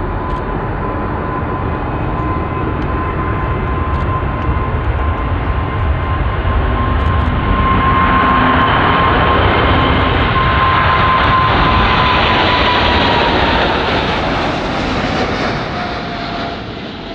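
Boeing 747-8F freighter taking off, its four GEnx turbofans at takeoff thrust: loud jet noise with a steady whine that falls in pitch as the jet passes. It grows louder about eight seconds in and fades near the end.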